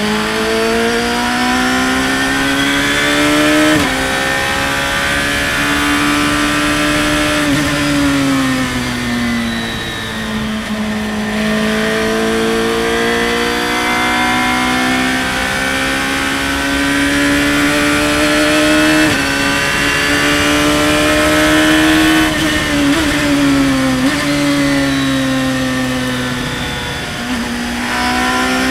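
Radical open-cockpit race car's engine running at high revs under hard acceleration, its pitch climbing and then cut abruptly by quick upshifts, about four seconds in and again past the middle. In between, the pitch falls away in steps as the car slows and shifts down for corners.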